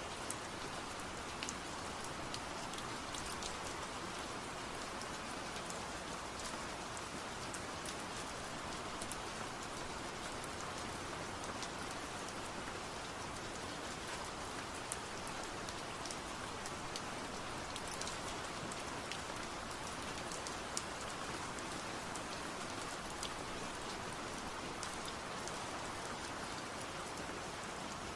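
Steady rain falling on a surface, an even hiss with scattered small drop ticks.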